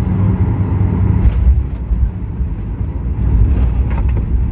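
Cabin noise of a Boeing 737-800 rolling on the ground: a steady low rumble of engines and wheels on the pavement, with short light knocks about a second in and near the end.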